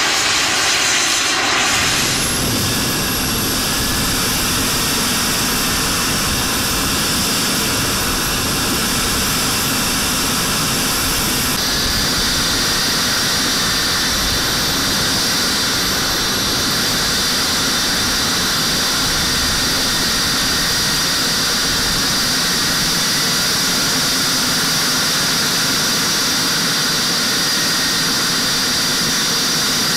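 Radio-controlled model jet's gas turbine engine whining steadily under a rush of air, heard from a camera on board the plane. A high whistle in the engine sound shifts in pitch about a third of the way through.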